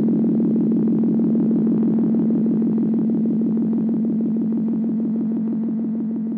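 Background music: a synthesizer holding one low note with a fast, even pulse, slowly fading near the end.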